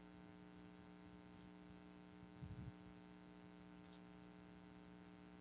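Near silence with a steady electrical hum, and a faint, brief low sound about halfway through.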